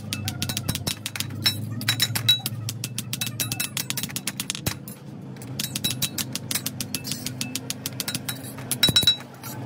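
Hand hammers striking metal in quick, irregular blows, ringing clinks from small steel plates hammered on a steel block and from work on a truck clutch disc's riveted friction lining. There is a brief lull a little before the middle and a louder burst of strikes near the end, over a steady low rumble.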